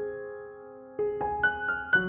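Background solo piano music, slow and gentle: a note struck at the start and left to fade, then several more notes in quick succession from about a second in.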